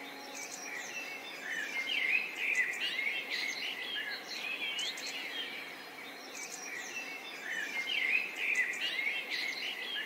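Background bird chorus: many small songbirds chirping and trilling over one another in quick, varied phrases, with a held piano chord dying away in the first two seconds.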